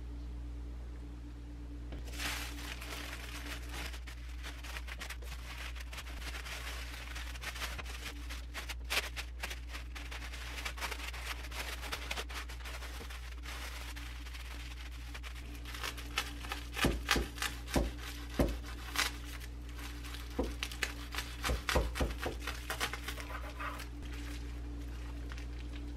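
A thin clear plastic bag and paper sheet crinkling and rustling as a sandwich is wrapped by hand, with sharper, louder crackles in the second half, over a steady low hum.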